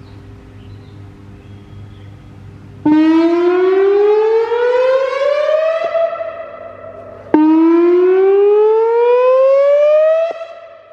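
Whelen Vortex "Finback" tornado siren sounding its whoop signal. About three seconds in it starts abruptly with a tone rising steadily in pitch for about three seconds, which levels off and fades. A second rising whoop begins about seven seconds in.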